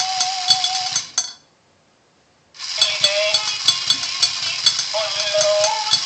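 Novelty remote-control yodelling lederhosen toy playing a recorded yodel song with a clicking beat. The song stops about a second in, leaves a silent gap of over a second, then starts up again.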